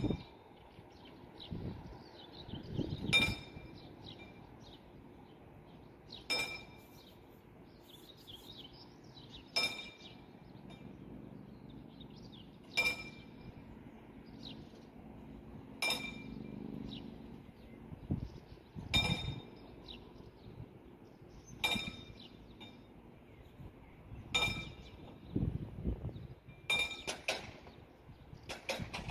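Level-crossing warning bell (Läutwerk) striking one ringing ding about every three seconds, the strokes coming closer together near the end. It warns that the crossing barriers are being lowered for an approaching train.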